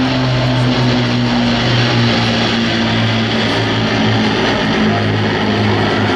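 Avro Lancaster bomber's four Rolls-Royce Merlin piston engines droning overhead in formation with propeller fighters: a loud, steady, low multi-tone hum whose pitch drops slightly as the formation passes.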